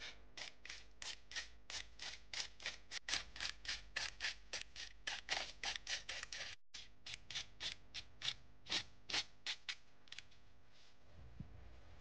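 Metal blade of a utility knife scraping across paper as it mixes a pile of powder: a quick series of short scrapes, about three a second, stopping near the end.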